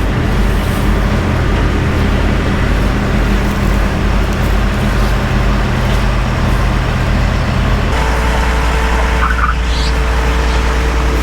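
Heavy-equipment diesel engine running steadily under load, a loud, even hum; about eight seconds in the engine note changes to a different steady drone with a held higher tone.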